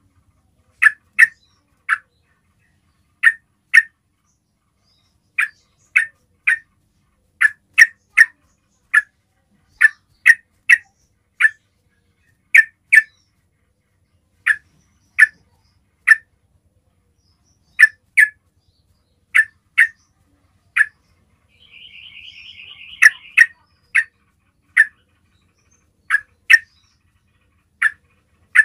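Yellow-vented bulbul (trucukan) giving its basic call: short, sharp chirps, mostly in pairs and threes, repeated every second or two. This is the calling note used to lure other bulbuls into answering. About three-quarters of the way in, a brief, quieter rapid trill sounds.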